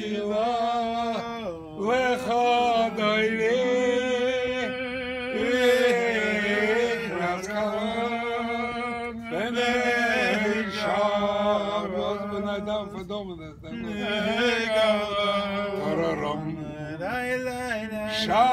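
Men singing a wordless Jewish melody (niggun) together, a slow chant with long held notes over a steady low note.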